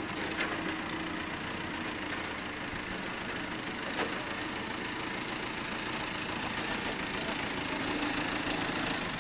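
Forklift engine running steadily as the forklift drives and turns across the yard, with a sharp click about half a second in and another about four seconds in. It grows a little louder near the end as the forklift comes closer.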